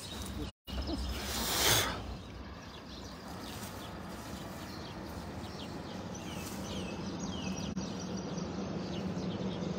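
Cast net and tall grass rustling in one short swish about a second and a half in as the net is handled. After it come many short, falling bird chirps over a steady low hum.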